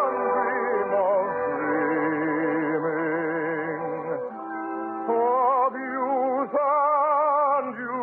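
Orchestral music from a 1952 radio operetta broadcast: a slow melody with strong vibrato, moving to a new phrase about four seconds in.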